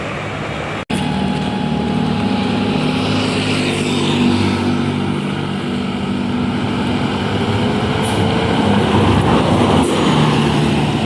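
A tour bus's Basuri telolet multi-tone air horn playing a tune of steady, stepping notes for several seconds, over bus engine and road noise. The horn sounds again near the end. The sound cuts out for an instant about a second in.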